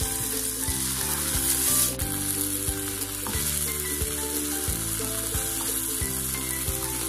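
Ground tomato chutney sizzling in a pan of hot coconut oil tempered with mustard seeds and curry leaves, stirred with a wooden spatula. The sizzle is loud at first and drops sharply about two seconds in. Soft background music with low, steady notes plays underneath.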